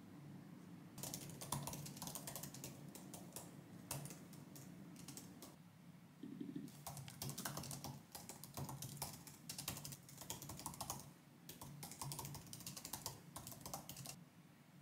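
Typing on an Apple MacBook's built-in keyboard: quick runs of soft key clicks, broken by short pauses about six seconds in and about eleven seconds in, over a faint low hum.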